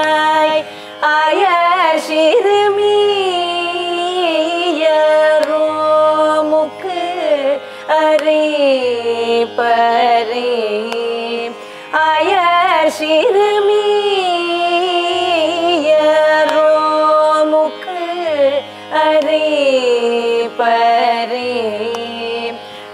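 Carnatic vocal music: two female voices singing a slow, heavily ornamented melody with sliding pitch glides, over a steady tanpura drone.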